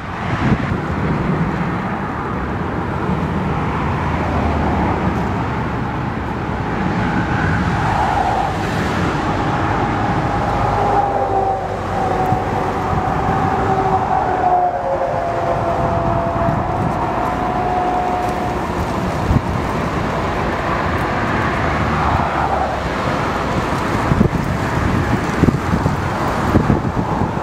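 Wind rushing over the microphone together with the jet engines of Airbus A320-family airliners landing in a crosswind. In the middle an engine whine slowly drops in pitch.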